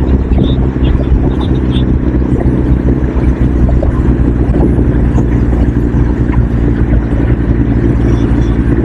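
A motor vehicle's engine running steadily at an even pitch, with road and wind noise.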